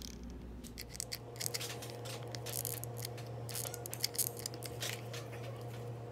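Light, irregular clicks and scrapes of hands handling seashells and a hot glue gun on a tabletop, over a steady low hum.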